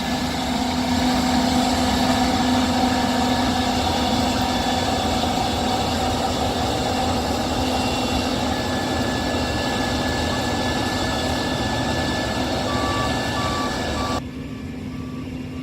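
Case IH 6140 combine running steadily in the corn field, with a few short backup-alarm beeps near the end.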